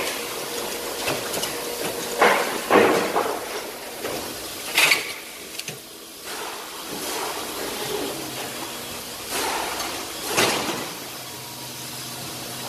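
Car-dismantling workshop noise: irregular knocks and clatters of handled parts over a steady background noise, loudest twice between two and three seconds in, once about five seconds in and once about ten seconds in.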